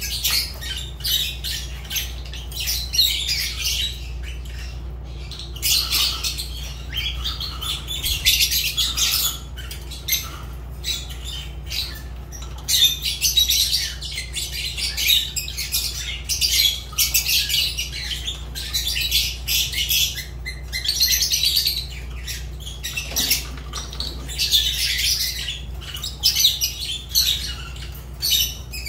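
Fischer's lovebirds chattering: a constant stream of quick, shrill chirps and squawks, one call crowding on the next.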